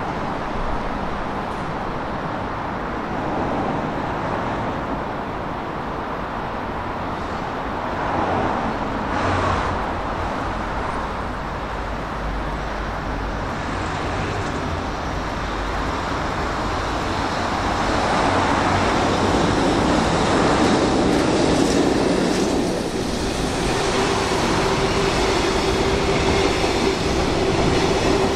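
A freight train hauled by an electric locomotive running past on the rails, with a steady rumble of wheels on track. It grows louder past the middle, and a steady whine joins it in the last few seconds.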